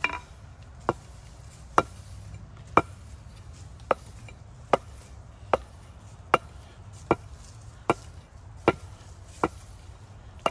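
Rinaldi Milano carpenter's axe bit being stroked along a wooden paddle strop: a sharp click with each stroke, about a dozen in all at a little more than one a second, the steel head ringing faintly after some of them.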